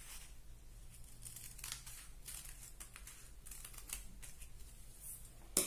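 Scissors cutting through folded brown pattern paper in a series of faint, short snips, the loudest stroke near the end.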